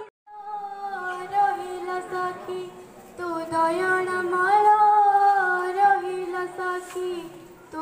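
A girl singing solo into a microphone without accompaniment, in long held notes with slight wavering. The song starts a moment in, pauses briefly about three seconds in, and the phrase tails off near the end.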